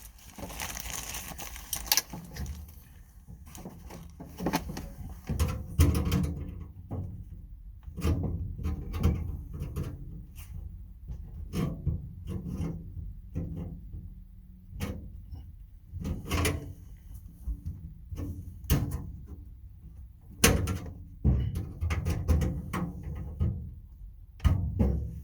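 Tool box being handled and worked on: irregular clunks, knocks and rattles, with handling noise between them.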